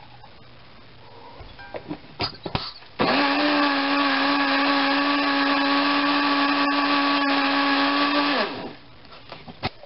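Electric blender motor running steadily for about five seconds, blending a small batch of hot melted butter into egg yolks and vinegar reduction for béarnaise sauce, then spinning down. A few clicks and knocks come just before it starts.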